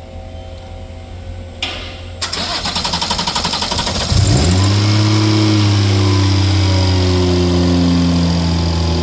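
BMW B58 turbocharged inline-six, swapped into an E24, cranking for about two seconds, then catching with a quick rev flare and settling into a steady idle as the revs slowly drop. It runs far more smoothly now that new spark plugs have been fitted to cure a misfire.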